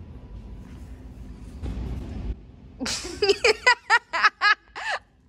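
A person laughing in a run of about seven short, high-pitched giggles in the second half, after a brief burst of rustling noise a little before the middle.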